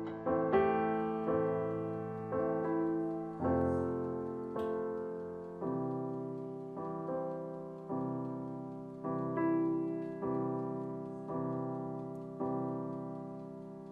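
Slow, gentle background piano music, a note or chord struck about once a second and left to ring, fading out near the end.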